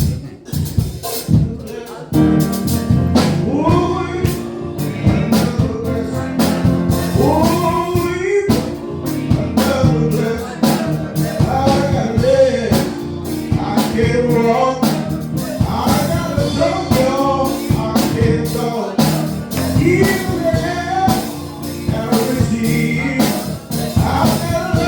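Live gospel music: a singer's voice sweeping up and down in long runs over a band with a drum kit keeping the beat.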